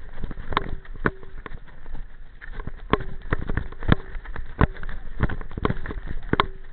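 Mountain bike clattering down a rocky trail: sharp, irregular knocks and clacks as the wheels jolt over the stones, some leaving a brief ring, over a low wind rumble on the microphone.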